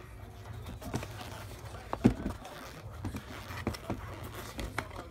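Hands handling a premium leather Nike Air Force 1 sneaker and its tissue paper: scattered taps, rubs and rustles, the sharpest knock about two seconds in, over a steady low hum.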